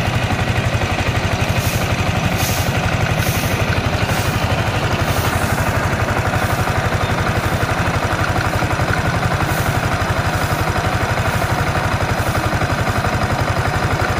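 Yamaha Sniper 155 VVA's single-cylinder engine idling steadily with a rapid ticking clatter from the cylinder head. This is the 'litak-litak' noise the owner traced to a failing camshaft bearing.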